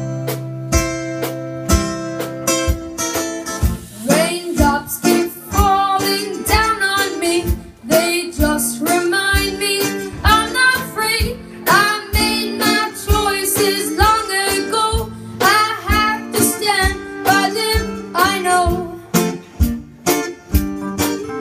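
A live song: a guitar strummed in a steady rhythm, joined by a boy's singing voice about four seconds in.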